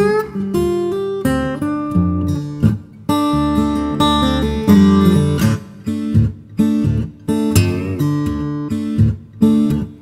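Background music: an acoustic guitar instrumental, plucked and strummed, with no singing.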